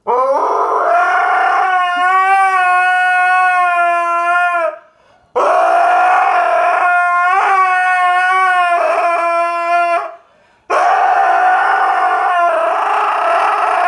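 Husky howling: three long howls at a steady pitch, each about four to five seconds, with short breaks for breath between them.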